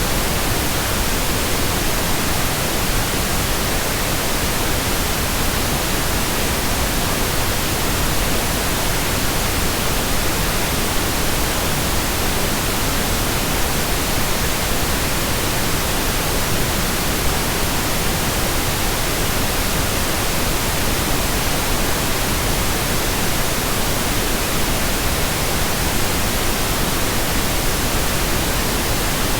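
Steady pink noise: an even, unchanging hiss spread across all pitches, with no events.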